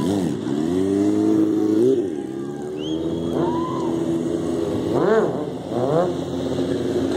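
Sport motorcycle engines revving during stunt riding, the pitch rising and falling with the throttle, with sharp throttle blips about five and six seconds in.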